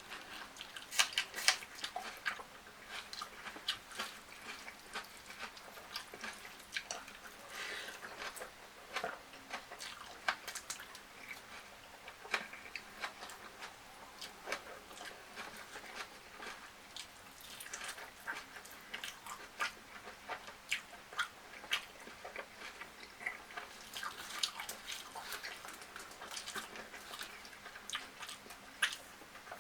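Close-up eating sounds: a person biting and chewing fried chicken and rice, with many irregular short crunches and wet smacks.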